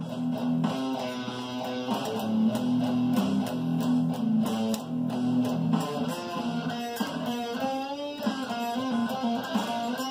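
Electric guitar played over a drum track: low riffed chords through the first half, then single notes bent in pitch from about seven seconds in.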